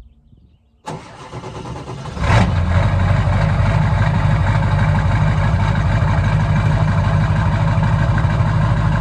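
Pickup truck engine started cold: the starter cranks for about a second, the engine catches with a brief rev, then idles steadily while warming up.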